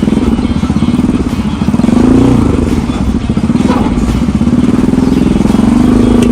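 Motorcycle engine running under way, its revs rising and easing off twice.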